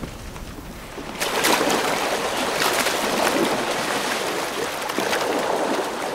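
Elephants splashing and churning water, a dense sloshing noise with many short splashes that starts about a second in.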